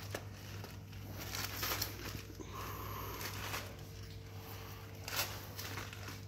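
Scraping and rustling as a person in firefighter breathing apparatus crawls on hands and knees across a concrete floor, the gear and clothing shuffling with each move, over a steady low hum.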